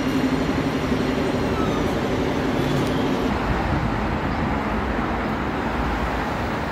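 Electric tram pulling out past a station platform: a steady motor hum with a high whine that slides down in pitch, fading out about three seconds in and leaving a steady wash of city traffic noise.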